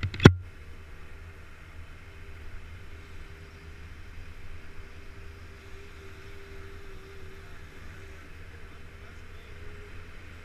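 Motorcycle engine running at a steady speed under a steady hiss, with one sharp, loud bang a fraction of a second in.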